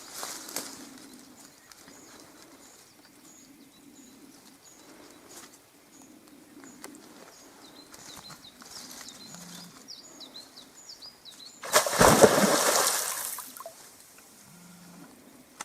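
Small birds calling: a short high note repeated at an even pace, then a few quick chirps. A loud rushing burst of noise lasts about a second and a half near the end.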